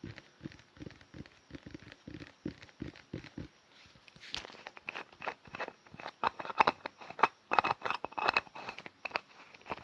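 Perfume bottle being tapped and handled for ASMR: a quick run of soft, dull taps, turning at about four seconds in into sharper, brighter taps and clicks with a faint ringing tone, loudest in the second half.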